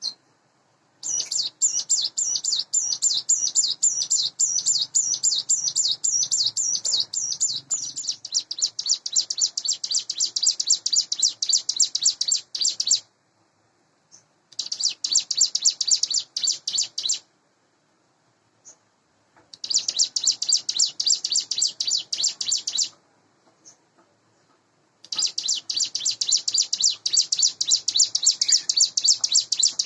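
Ciblek gunung (hill prinia) singing: a fast, rapid-fire series of high chirping notes, delivered in four long bouts, the first about twelve seconds long, separated by short pauses.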